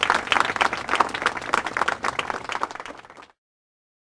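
Applause: many hands clapping, dying down and then cut off abruptly about three seconds in.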